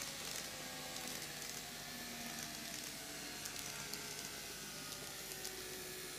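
KATO N-gauge model train running on track: a faint steady whir from its motor, scattered light clicks from the wheels on the rails, and a background hiss.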